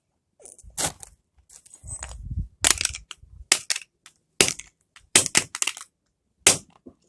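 An old flip phone being smashed: about ten sharp, irregular cracks of its casing and keypad breaking, with a heavier crunch about two seconds in.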